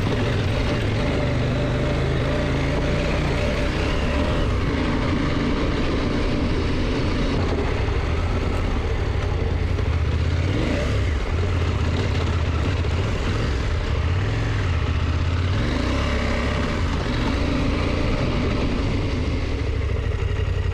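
KTM motorcycle engine running under way, its pitch rising and falling several times as the speed changes, with steady wind and road noise.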